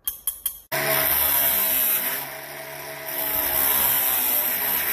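A few sharp clicks from pliers on steel wire mesh, then an angle grinder with a cut-off disc running at full speed, cutting through a welded wire mesh panel; the steady whine dips for about a second midway as the disc bites into the wire.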